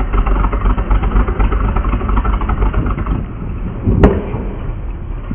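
Heavy vehicle engine idling with a steady low rumble. A single sharp knock sounds about four seconds in.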